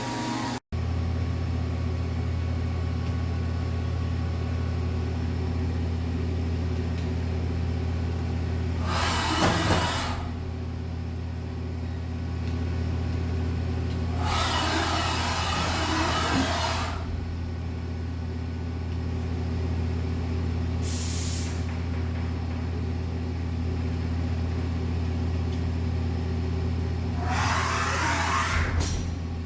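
Fadal VMC 4525 vertical CNC machining center running with a steady hum, broken four times by bursts of hissing, the longest lasting about two and a half seconds.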